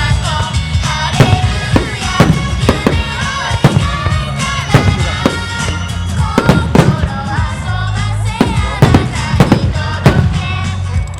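Fireworks shells bursting in quick, irregular succession over a loud pop song with a singing voice.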